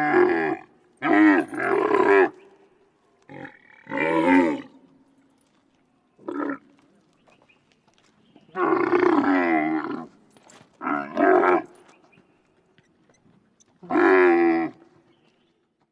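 Camel calling: about seven separate pitched calls, from very short to about a second and a half long, with quiet pauses between them.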